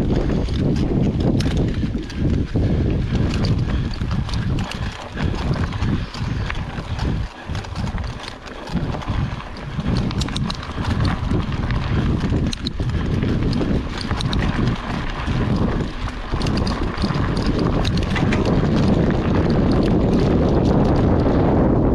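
Mountain bike riding over a dirt and gravel forest trail: tyre rumble on the ground with many quick rattles and knocks from the bike over bumps, and wind noise on the microphone. It becomes steadier and a little louder near the end, as the trail turns to gravel.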